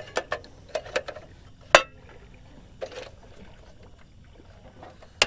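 Clicks and knocks of a portable butane camp stove being handled as the gas canister is seated, loudest about two seconds in, then a sharp click near the end as the ignition knob is turned to light the burner.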